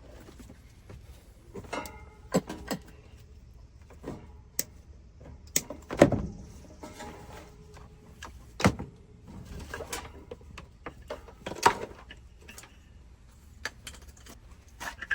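Irregular knocks, clicks and clanks of hands and tools handling metal parts of an air-conditioning unit during a fan motor replacement, the loudest knocks about six, nine and twelve seconds in.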